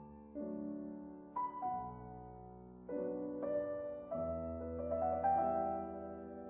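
Slow, soft piano music: chords and single notes struck about once a second, each left to ring and fade.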